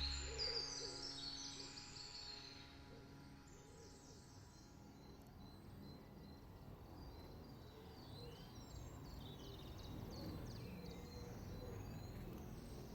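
Background music fading out at the start, then faint outdoor birdsong: many short high chirps with a low hooting call among them.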